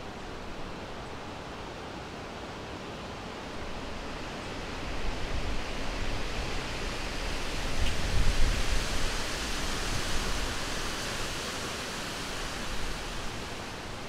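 Wind gusting: a steady rushing that swells about four seconds in and peaks around eight seconds with a low rumble, then eases off.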